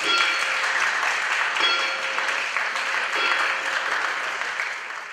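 Boxing arena crowd applauding and cheering as the referee stops the bout on a TKO, with scattered shouts; it fades out near the end.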